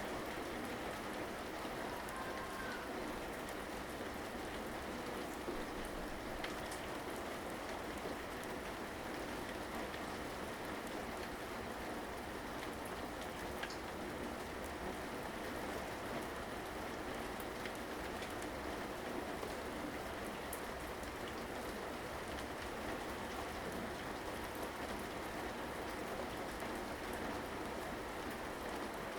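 Steady rain falling, an even patter of raindrops with a few scattered louder drops.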